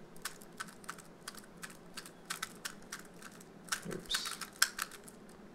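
A 3x3 speed cube being turned by hand: a run of quick, uneven plastic clicks as its layers are turned through an algorithm one move after another.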